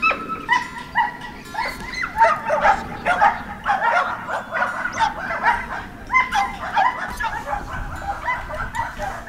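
A pack of Siberian huskies yipping and whining excitedly, many short high calls overlapping. The calls thicken into a dense chorus after about a second and a half.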